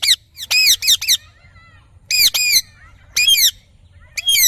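A parrot calling in short, high, arched calls. The calls come in quick runs of two or three, with a new run about every second.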